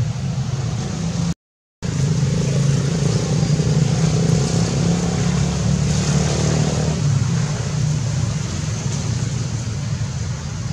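A steady low motor hum, like an engine running close by, broken by a short dead-silent gap about a second and a half in.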